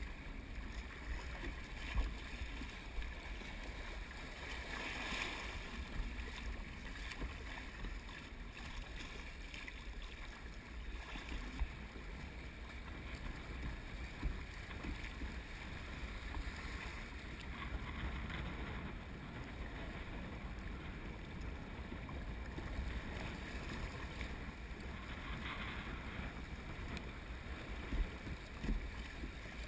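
Shallow river water rushing and lapping around a plastic sit-on-top kayak moving through riffles, with wind rumbling on the microphone. A few brief splashes or knocks stand out, about two seconds in and again near the end.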